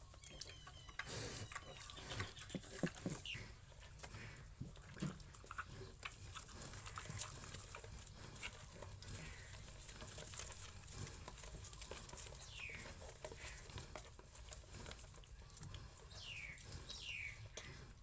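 Sow and piglets: scuffling and clicking throughout, and a few short high calls that fall in pitch in the second half.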